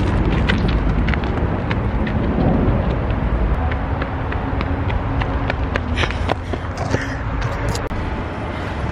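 Running footsteps on a gravel path, a string of short sharp crunches, over a steady low outdoor rumble.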